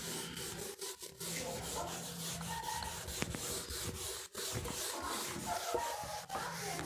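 Uneven scratchy rubbing noise with several brief drop-outs, over a faint low hum.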